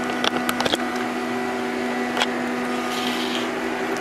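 Hitachi Seiki HT CNC lathe running through its program with a steady machine hum, with a cluster of sharp clicks about half a second in and a single click near the middle.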